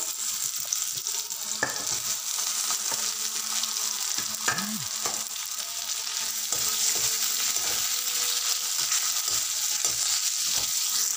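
Boiled potato chunks sizzling in hot ghee in a metal kadhai. A perforated steel ladle stirring them scrapes and clicks against the pan now and then. The sizzle gets louder about halfway through.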